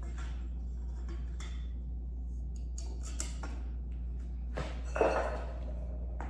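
Hard parts of an animatronic's base being handled and fitted together: scattered light knocks and rustles, and a louder clinking clatter about five seconds in, over a steady low hum.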